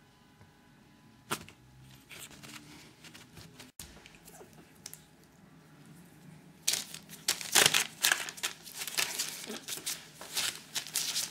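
Newspaper crinkling and rustling under a chihuahua puppy playing on it, irregular and getting loud in the second half.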